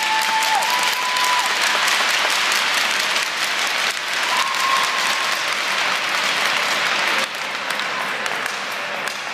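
A crowd applauding, louder for about the first seven seconds and then easing off, with a short whoop or two in it.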